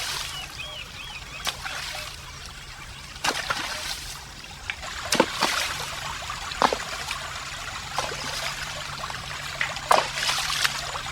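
Shallow stream water trickling, broken by irregular splashes every second or two, the loudest about five and ten seconds in.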